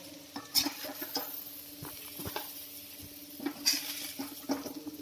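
Slotted metal spatula scraping and knocking against a pan as fried grated taro (arbi) is scooped out, a scatter of irregular scrapes and taps over a steady low hum.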